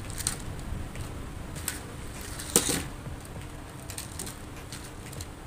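Small toy RC rock-crawler clambering onto a wooden board, its plastic wheels and chassis clicking and knocking, with one sharp knock about two and a half seconds in.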